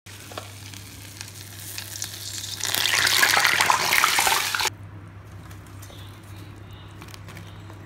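Lentil-batter vadas deep-frying in a pan of hot oil: a crackling sizzle that builds from about a second in, is loudest from just under three seconds to about four and a half, then cuts off suddenly. A low steady hum runs underneath.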